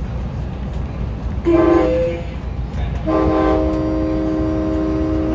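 Train horn heard from inside an Amtrak Pacific Surfliner coach, sounding a chord of several steady tones: a short blast about one and a half seconds in, then a long blast from about three seconds in that holds to the end. Under it is the steady low rumble of the train.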